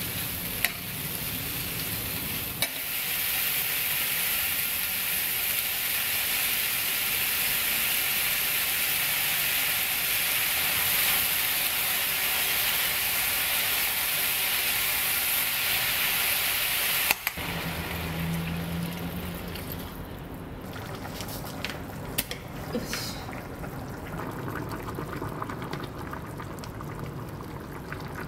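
Diced vegetables stir-frying in olive oil in a nonstick pan: a loud, steady sizzle with a few clicks of the spatula. About 17 seconds in the sizzle drops off abruptly, and quieter bubbling with occasional knocks follows as the vegetables simmer in added liquid.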